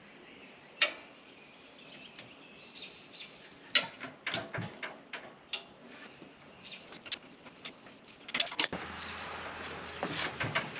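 Scattered sharp clicks and knocks of tools and parts being handled during hands-on repair work, with a tight cluster of knocks near the end. Faint bird chirps are heard in the background.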